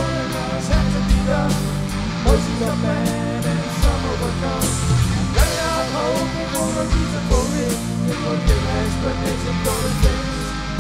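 Rock music: drums keep a steady beat under held bass notes, with a wavering lead melody line on top.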